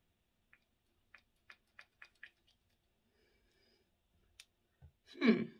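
Faint plastic clicks of a Stila primer pump bottle being pumped: about five quick clicks a little after a second in, then a single click, then a louder brief sound near the end.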